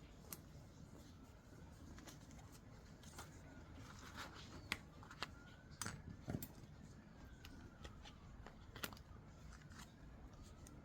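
Paper being handled and shuffled on a work surface: soft scattered clicks, taps and crinkles, busiest around the middle, over a faint steady background noise.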